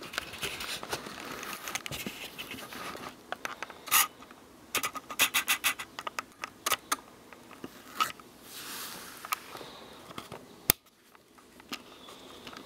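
Handling noises on a workbench: scraping and rubbing with scattered sharp clicks, including a quick run of small clicks about five seconds in and a sharp click near the end.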